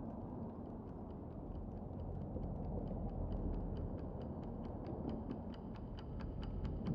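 Clock ticking steadily, the ticks growing louder, over a low continuous rumble.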